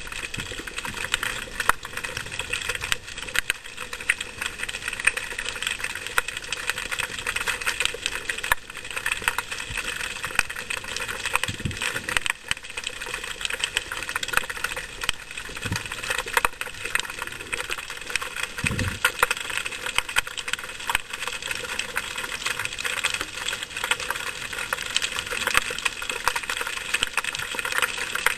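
Underwater ambient crackle: a dense, steady patter of tiny clicks, with a few brief low thuds about twelve, sixteen and nineteen seconds in.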